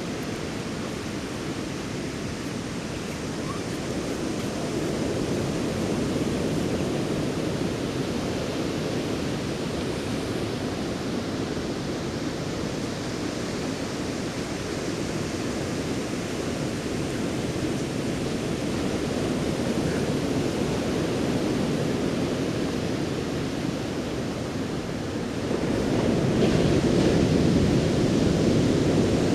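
Ocean surf washing onto the beach, a steady rush of noise that grows louder near the end as a wave breaks.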